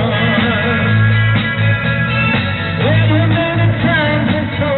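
Live rock band playing loudly through a PA: electric guitar, bass and drums, with singing over the top.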